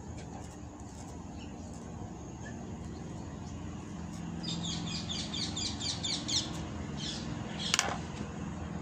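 A bird chirping in a quick run of short high notes, about eight a second, starting about halfway through, over a low steady hum; a single sharp click near the end.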